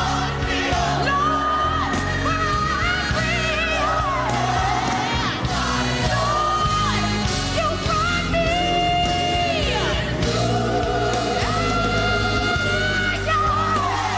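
Live gospel music: a lead singer sings wavering vocal runs and long held high notes over a steady band accompaniment.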